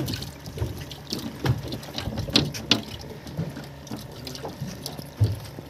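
Water sloshing and splashing, with scattered light clicks and taps and a knock near the end, over a steady low hum.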